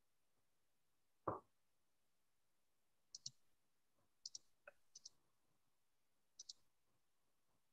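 Quiet room with four pairs of short, sharp clicks, a computer mouse being double-clicked, and a single dull thump about a second in.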